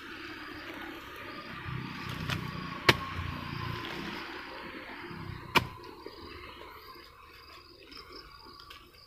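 Small hand hoe chopping into damp, clumpy soil: two sharp strikes about two and a half seconds apart, with softer scraping and digging between. Steady insect chirring runs underneath and fades toward the end.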